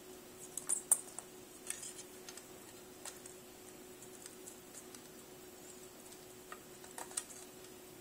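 Faint scattered clicks and light taps from soldering on a circuit board, the soldering iron tip and fingers against the board and relay pins, in small clusters about a second in and again near the end, over a steady faint hum.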